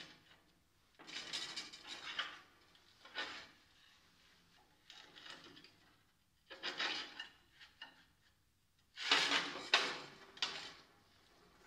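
Small stainless-steel parts slid and set down on a steel sheet: metal scraping and clinking in several short bursts, the loudest near the end.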